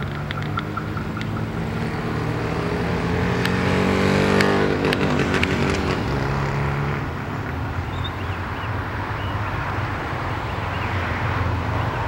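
Road traffic driving over a level crossing: cars and a van pass one after another, the loudest about four to five seconds in, its engine note rising and then falling as it goes by.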